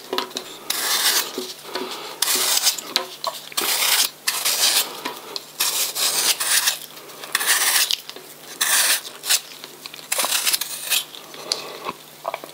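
Kitchen utensils scraping and clinking against kitchenware in about a dozen short, irregular strokes, over a faint steady hum.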